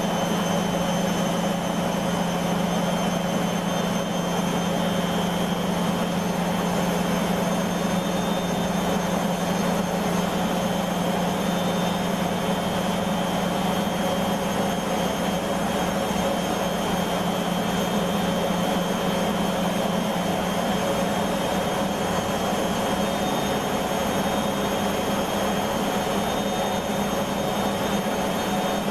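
Beko washing machine spinning at high speed: a steady motor and drum whine at constant pitch.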